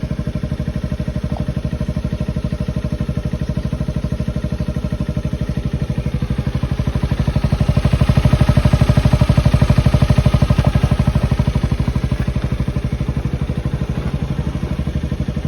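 Yamaha Maxam SG17J 250 cc scooter engine idling through a Ducati stock slip-on silencer adapted to fit, with an even run of exhaust pulses. About halfway through the note swells louder for a few seconds, then settles back to idle.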